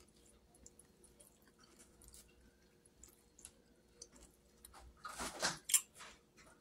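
Quiet close-up eating sounds: chewing and small mouth clicks, with light taps of a fork picking up food from a styrofoam takeout container. About five seconds in comes a louder noisy scrape lasting under a second.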